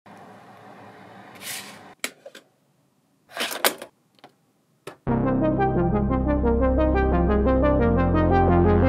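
A few faint clicks and two short noisy bursts, then about five seconds in a synthesizer starts playing loud brass-like chords over a fast repeating note pattern and a held bass note that shifts near the end.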